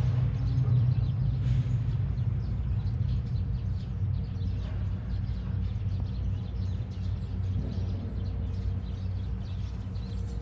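Small birds chirping faintly over a steady low rumble.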